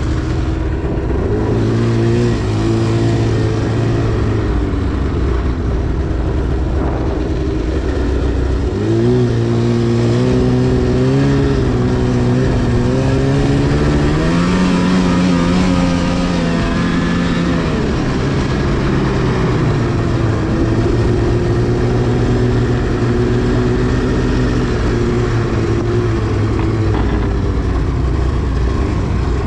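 2010 Arctic Cat CFR 1000's two-stroke engine running under throttle while riding. It rises in pitch about nine seconds in, climbs higher around the middle, drops back, then holds fairly steady.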